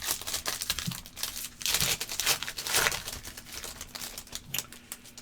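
A foil trading-card pack wrapper being torn open and crinkled by hand, a crackling rustle that is busiest in the middle.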